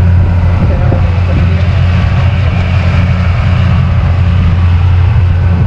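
Small tour boat's motor running steadily under way, a low, even hum, with water and wind noise around it.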